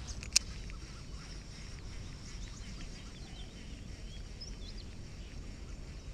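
Outdoor pond ambience: faint birds chirping over a steady low rumble. One sharp click comes just under half a second in.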